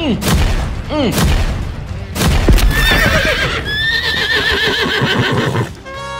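Cartoon sound effects: a few heavy thuds against a wooden cage gate in the first two seconds or so. Then several horses whinny at once, with a wavering, quavering call over a clatter of hooves. The whinnying stops suddenly just before the end.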